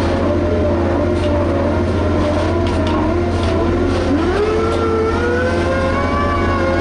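Liebherr HS 8200 dragline's diesel engine running under load, its pitch wavering and then rising about four seconds in as it revs up. Faint clanks are heard in the first few seconds.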